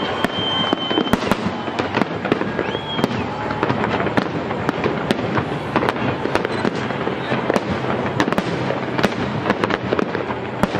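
Fireworks display going off in rapid, irregular succession: many sharp bangs and crackles of bursting shells over a continuous din, with crowd voices underneath and a high, steady whistle during the first second.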